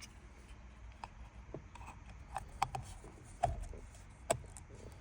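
Scattered sharp metallic clicks and knocks as a steering wheel boss kit is fitted onto the steering column splines, about six in all, the loudest two about three and a half and four and a half seconds in.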